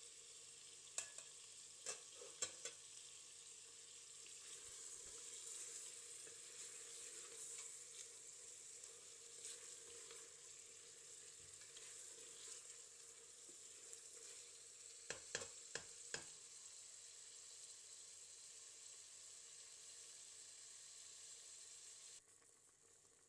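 Faint sizzling of food cooking in a pot, with a few sharp clicks of a utensil against the pot about one to three seconds in and again about fifteen seconds in.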